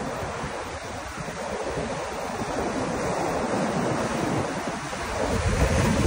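Ocean surf breaking and washing up the shore, with wind buffeting the microphone. The low rumble dips about a second in and swells again near the end as a wave comes in.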